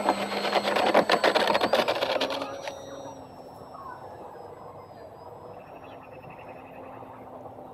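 Electric motor of a Hobbyzone Apprentice S2 RC plane on floats, at full power for the takeoff run, with a loud, rough rasping as the floats slide across the snow-covered ice. After about two and a half seconds the plane is airborne and the noise drops to the faint whine of the motor and propeller as it climbs away.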